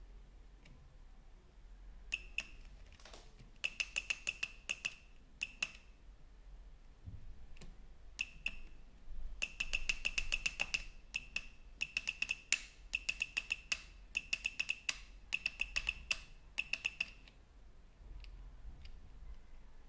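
Sharp ringing clicks in rapid bursts of several a second, broken by short pauses.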